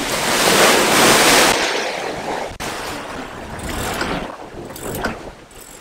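Wind and sea noise on an open fishing boat under way in rough water: a rush of wind and spray that swells over the first second and a half, then eases and rises again briefly, with a single sharp click about two and a half seconds in.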